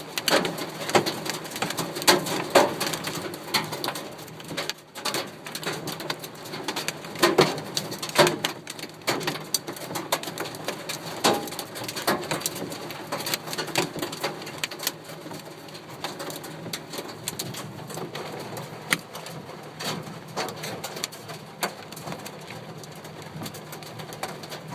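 Large hailstones hitting the metal roof and windscreen of a van, heard from inside as irregular hard knocks over a steady patter. They are heaviest in the first several seconds and grow sparser later.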